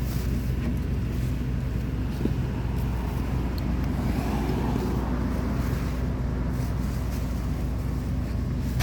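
An engine running steadily at an even pitch, a constant low drone with no revving.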